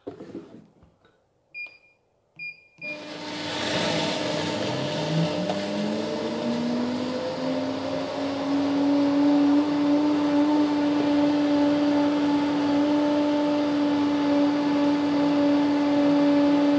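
Two short electronic beeps from a 1,650-watt commercial blender's controls, then its motor starts about three seconds in, blending ice with coffee, coconut water and coconut flesh. Its pitch climbs for about five seconds as it comes up to speed, then it runs steady, muffled by its sound enclosure.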